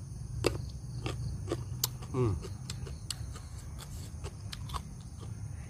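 Close eating sounds: irregular wet mouth clicks and smacks of someone chewing grilled squid, over a steady low hum. About two seconds in comes one short wavering vocal sound that falls in pitch.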